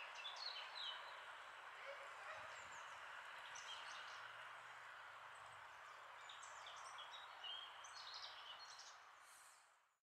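Faint outdoor ambience: small birds chirping over a soft steady hiss, fading out near the end.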